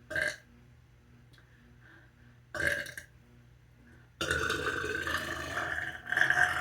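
A person burping deliberately: two short burps a couple of seconds apart, then a long drawn-out burp from about four seconds in.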